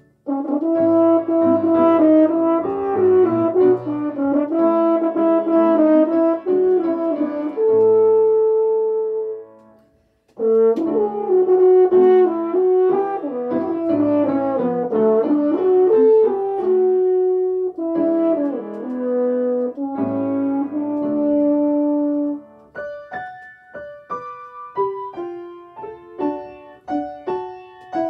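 French horn playing a slow, lyrical melody in two long phrases with piano accompaniment, with a brief breath-pause between them. About two-thirds of the way through the horn stops and the piano carries on alone with short, detached notes.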